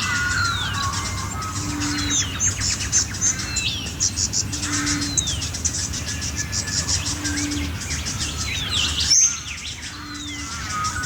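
A chorus of many wild birds singing together: a falling whistle repeated about every two and a half seconds over fast, high chirps and trills, with a low steady note recurring at about the same interval.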